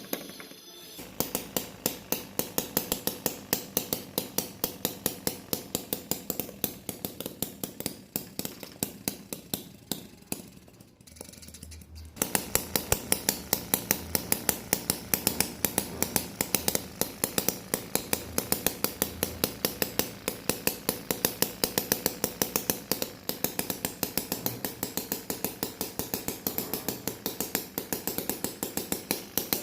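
Small mechanism clicking at an even pace, about three clicks a second. The clicking fades and stops for about a second around the middle, then starts again louder.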